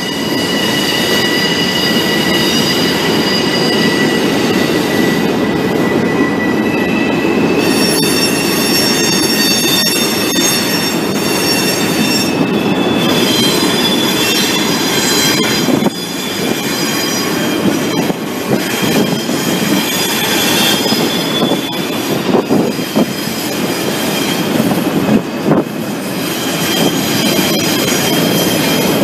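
Freight cars rolling past on steel rails: a coal train's hopper cars close by, with a rumble and high, steady wheel squeal whose pitch changes every few seconds, and scattered clicks of wheels over the rail.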